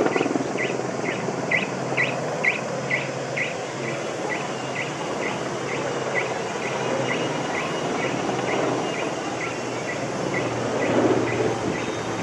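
Erickson S-64 Air-Crane firefighting helicopter heard at a distance as a steady rumble of twin turbines and rotor, swelling slightly near the end as it climbs away. A short high chirp, insect or bird, repeats about twice a second over it.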